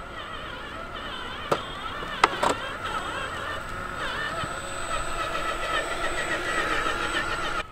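Electric motor and gear drivetrain of a 1/10-scale RC4WD Desert Runner crawler truck whining, its pitch wavering up and down with the throttle. Sharp clicks and knocks come about a second and a half in and twice more around two and a half seconds. The sound stops abruptly at the very end.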